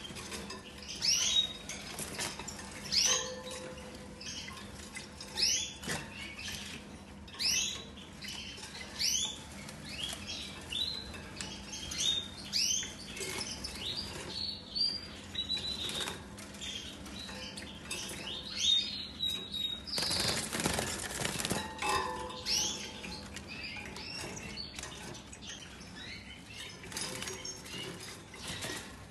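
Caged European goldfinches giving short rising chirp calls every second or two, with bursts of wing fluttering, the longest about two-thirds of the way through.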